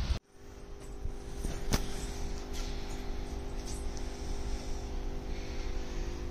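Room tone: a steady low hum with one sharp click a little under two seconds in and a few fainter clicks after it.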